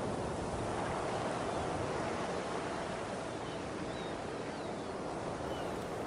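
Ocean surf ambience: a steady, even wash of waves with a few faint, short high chirps around the middle.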